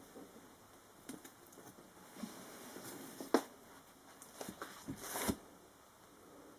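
Faint scattered rustles and light knocks of someone handling things and moving about in a small room. A sharp click comes a little over three seconds in, and a longer rustle about five seconds in.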